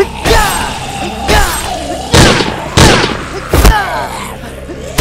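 A run of loud booming bangs, five in under four seconds, several followed by a short falling tone.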